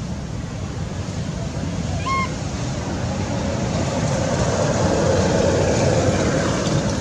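Steady low rumble that swells louder midway, like a motor vehicle passing, with one short high chirp about two seconds in.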